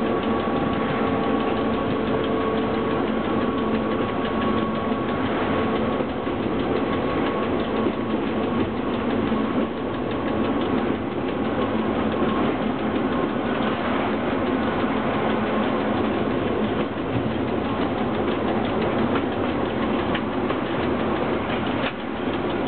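Cab noise of the BDZ class 45 electric locomotive under way: a steady mechanical rumble and rattle of the running locomotive and its wheels on the track. A faint steady whine fades out in the first several seconds.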